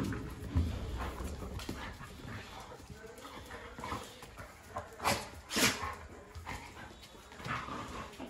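A Doberman and a black-and-white dog play-fighting, giving a series of short, sharp vocal outbursts; the loudest two come close together about five seconds in.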